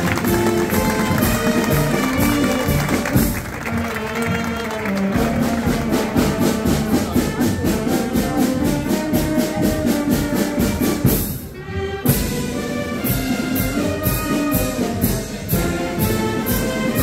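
Procession brass band playing, trumpets and trombones over a steady percussion beat, with a brief break about two-thirds of the way through.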